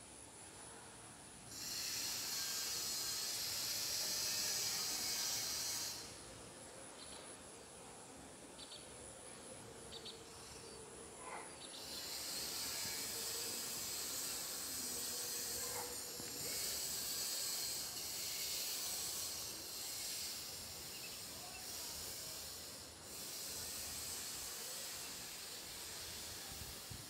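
A chorus of insects giving a high, hissing drone that switches on and off abruptly in long bouts. It starts about a second and a half in, stops for several seconds, then resumes and runs on with a brief drop near the end.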